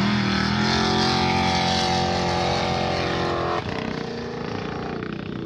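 Formula Offroad car's engine at full throttle, launching up a steep sand hill climb. Its pitch rises at the start and holds high. About three and a half seconds in it drops off suddenly to a quieter, lower note.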